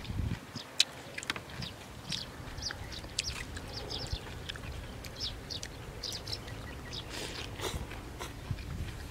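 Close-up mouth sounds of someone eating Khmer rice noodles (num banhchok): wet chewing and slurping in many small irregular clicks, with one sharp click about a second in.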